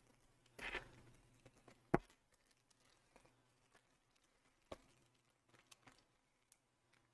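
Small plastic zip-lock bags being handled and pressed shut by hand: faint crinkling with a few sharp little clicks, the loudest about two seconds in.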